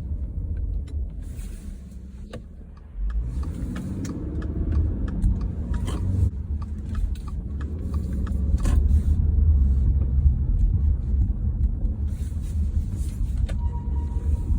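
2018 Subaru Legacy on the move, with a steady low road rumble and a run of sharp ticks and squeaks in the middle. These squeaks appeared after the transmission was replaced.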